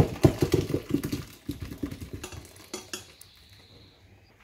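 Water and freshly peeled potatoes poured from a Thermomix stainless-steel mixing bowl into its plastic simmering basket: splashing with the potatoes knocking against the basket and bowl, thinning out about three seconds in.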